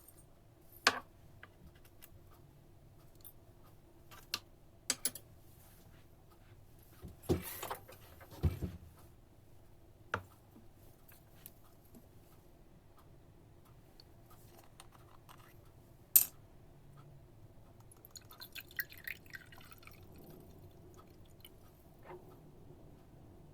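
Scattered light clicks and knocks of kitchen work with a glass jar, with a single sharp knock partway through and a short run of small crackly ticks near the end.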